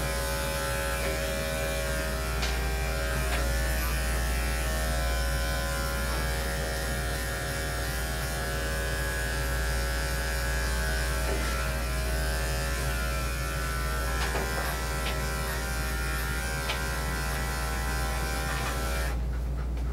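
Corded electric dog-grooming clippers running with a steady motor buzz while shaving a dog's coat. The buzz cuts off near the end.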